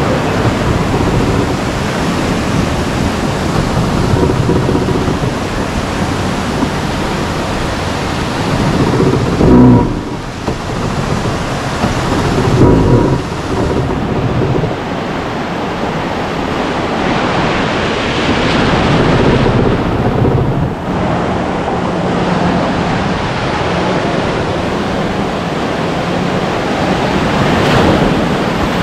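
Ocean surf and wind buffeting the microphone: a continuous rumbling, rushing noise. Two louder surges come about ten and thirteen seconds in.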